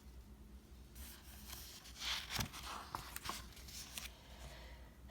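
A picture book's paper pages being handled and turned: soft rustling and a few light clicks, loudest about two to two and a half seconds in.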